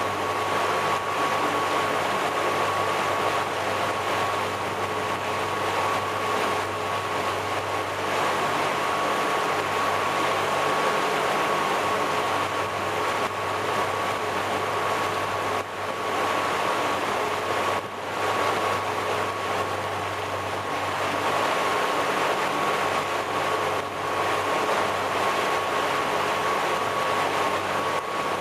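350 cubic-inch V8 MerCruiser engine of a Trophy 2459 boat running at a steady speed under way, over the rush of churning wake water.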